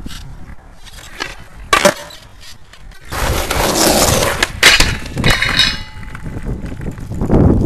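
Skateboard on concrete: sharp clacks of the board, then a long loud rolling and scraping rush with hard knocks as the board and rider hit the road in a hard bail.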